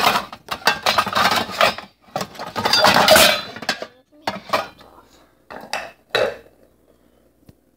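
Pots, pans and lids clattering and clanking as a small pan and a lid are rummaged out, a dense run for about three and a half seconds, then a few separate knocks.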